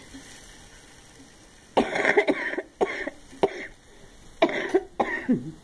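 A person coughing in a fit: about five coughs in quick succession, starting about two seconds in. It is the cough of someone who is unwell and coughs whenever she tries to talk.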